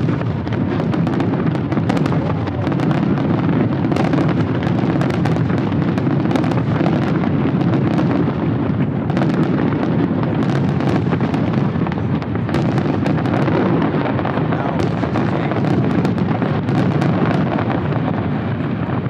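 Fireworks going off in a continuous barrage, with many bursts overlapping into a dense, unbroken rumble full of sharp cracks.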